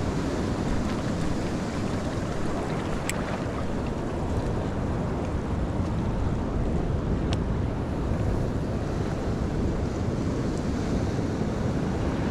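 Surf breaking and washing over a rocky shore, with wind buffeting the microphone. There are two light clicks, about three and seven seconds in.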